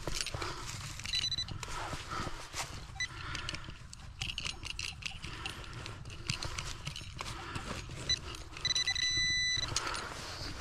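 Hand digging in woodland soil: dirt and roots scraping and crunching as a hole is worked. Short high electronic beeps from metal-detecting gear sound a few times, with one longer beep near the end, as the hole is probed for a deep target.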